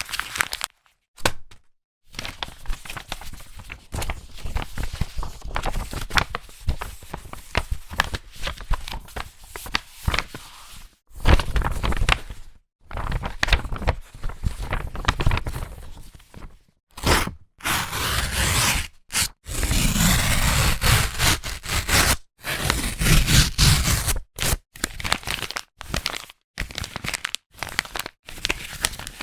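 Sheet of paper being crumpled into a ball by hand: dense crinkling and crackling in bursts, with several brief pauses between handfuls.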